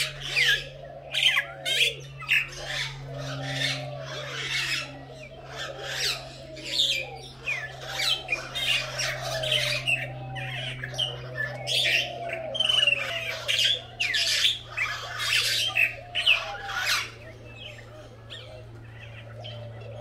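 A chorus of free-roaming aviary birds: frequent harsh squawks and shrieks over lower, repeated calls, thinning out near the end.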